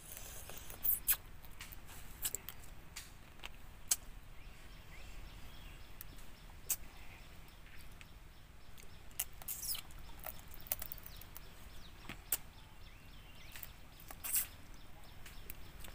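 Close mouth sounds of someone eating with her fingers: scattered wet smacks and clicks of chewing and finger-sucking, a few of them sharper, over a faint outdoor background.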